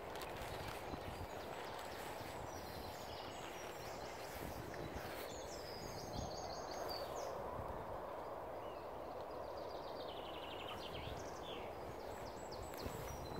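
Birds singing and chirping several times over a steady rush of outdoor background noise, with a quick repeated trill about ten seconds in.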